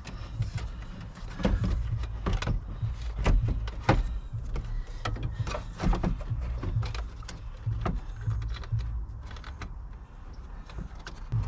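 Irregular clicks and knocks of hard plastic and metal as parts around a Ford F-250's steering column and loosened instrument cluster are handled and pushed into place, over a low steady rumble.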